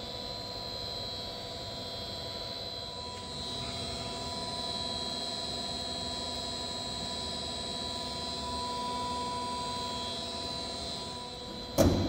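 A 110-ton single-phase CNC hydraulic press brake running, giving a steady machine hum with several constant whining tones. A sharp bang sounds near the end.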